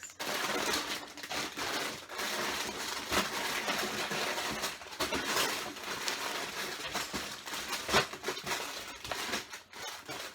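Sealed plastic bags of LEGO pieces crinkling and rustling as they are handled one after another, with many small clicks throughout.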